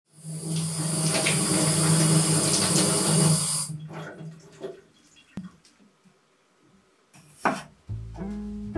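Kitchen tap running into a stainless steel sink, cut off about three and a half seconds in. Small knocks and clatter follow, and guitar music comes in near the end.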